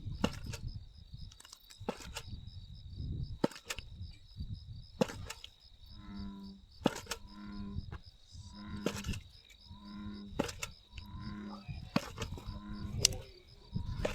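Insects chirring steadily on one high tone, with scattered sharp clicks. Through the middle comes a series of low pitched notes repeated about once a second.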